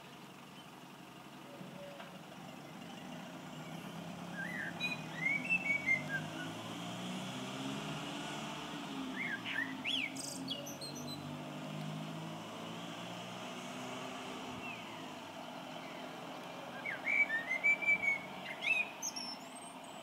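A songbird singing in three short bursts of chirps, about five, nine and seventeen seconds in. Under it are the low hum of a distant bus engine and the steady hiss of rain.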